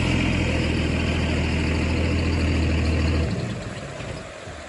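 A vehicle engine idling steadily, with a low hum, cutting off abruptly about three seconds in and leaving a fainter hiss.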